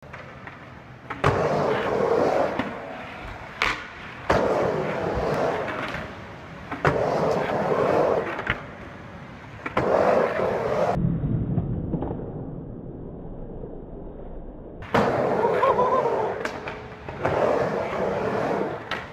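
Skateboard riding a mini ramp: the wheels roll with a rough whir on each pass, and sharp clacks come as the board hits the ramp, roughly every two to three seconds. The middle stretch is quieter and duller, with rolling only.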